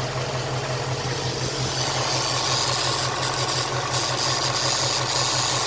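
2018 Ford Mustang GT's 5.0-litre V8 idling steadily, with a high hiss over it that strengthens about two seconds in and cuts in and out several times. The hiss is the weird noise the owner is trying to capture.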